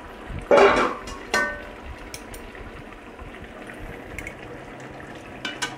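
Mutton curry simmering and bubbling in an open steel kadai, a steady soft bubbling. Two loud sharp knocks come in the first second and a half, the second with a brief metallic ring, and a few faint ticks follow later.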